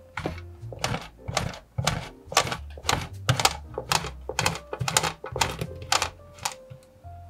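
A block of cheese grated on a stainless-steel box grater against a wooden board: quick, rhythmic rasping strokes, several a second, that stop near the end.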